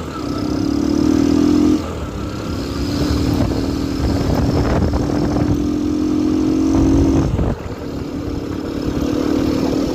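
Yamaha XTZ's single-cylinder four-stroke engine running under way, louder and rawer with the air filter removed and a washer fitted in the exhaust. The engine note climbs steadily and drops sharply twice, about two seconds in and again near the end, as the gears change, over a low rumble of wind noise.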